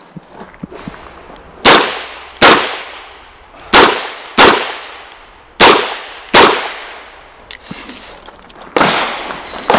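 Six shots from a Chiappa Rhino revolver, fired in three quick pairs about three quarters of a second apart, each shot ringing off briefly. Near the end comes a duller bang.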